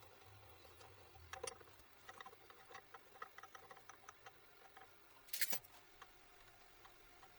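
Scattered light clicks and taps of small hard objects being handled, with one louder brief clatter about five and a half seconds in.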